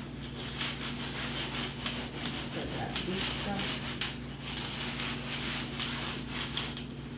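A scrub sponge rubbed hard back and forth across a tabletop, a continuous scrubbing of repeated strokes with a short pause about four seconds in.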